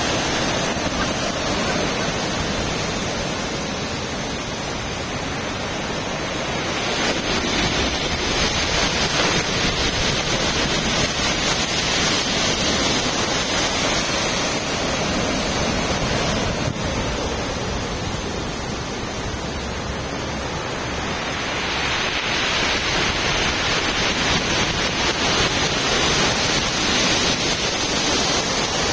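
Rough storm surf driven by an approaching typhoon, washing continuously against the seawall, with two big surges, the first about a quarter of the way in and the second about three quarters of the way in. Wind buffets the microphone throughout.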